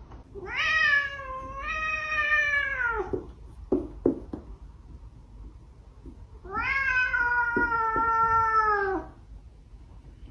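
A domestic cat giving two long, drawn-out meows, the first starting about half a second in and the second about six seconds in. A few short clicks fall between them.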